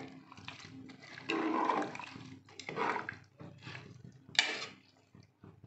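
A steel spoon stirring rice, vegetables and water in a pressure cooker: a few wet, sloshing swishes, one stroke after another.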